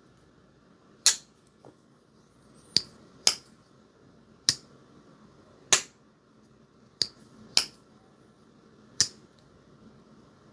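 Slip-joint pocket knife blade snapping open and shut against its backspring: eight sharp clicks, some in close pairs. This is the "walk and talk" of a QSP Hedgehog slip joint.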